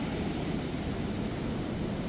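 Ocean surf on a shore in the lull between breakers: a low, steady wash of receding water.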